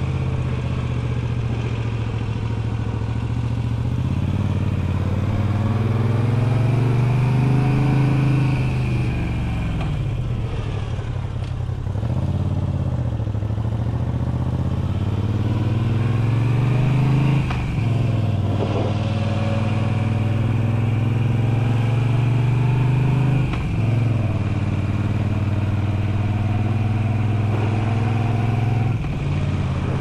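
Moto Guzzi V7 850's air-cooled transverse V-twin running through Mistral Shorts slip-on exhausts under way. Its note rises and falls with the throttle and breaks off briefly a few times.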